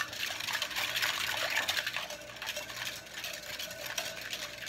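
Wire whisk beating hot strawberry gelatin in a glass bowl: rapid, steady stirring with liquid sloshing and quick clicks. The whisking works out the last grainy bits of undissolved gelatin.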